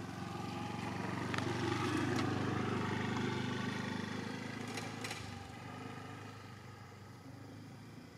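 An engine running, with a steady pitch, growing louder over the first two seconds and then slowly fading away; a few short clicks sound in the middle.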